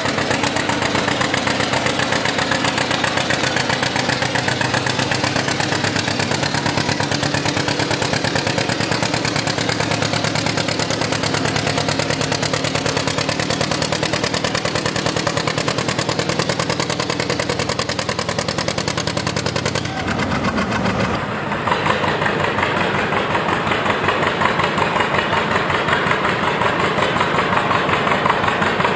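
John Deere two-cylinder tractor engine working hard under load as it drags a loaded pulling sled, with a rapid, even exhaust beat. About two-thirds of the way through the sound changes abruptly to another two-cylinder John Deere tractor engine running.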